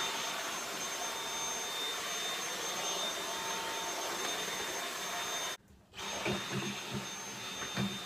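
Dyson V8 cordless vacuum cleaner running steadily with a high whine while its attachment works over carpeted stairs. It cuts off suddenly about five and a half seconds in, then comes back with a few low knocks.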